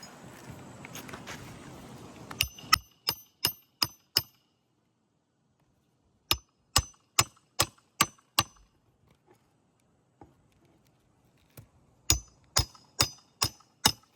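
Hammer driving nails in three runs of about six quick ringing blows each, a few seconds apart.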